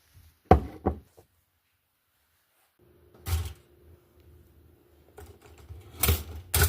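Crunchy toast being bitten and crunched in short, sharp bursts: two close together about half a second in, another around three seconds, and a louder pair near the end. A faint steady hum runs underneath from about three seconds in.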